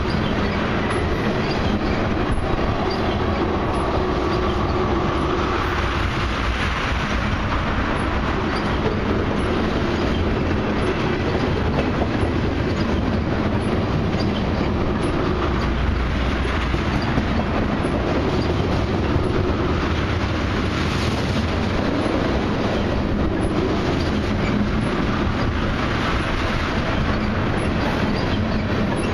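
Loaded ethanol tank cars of a long freight train rolling past close by: a steady rumble of steel wheels on rail, with repeated clicks as the wheels cross the rail joints.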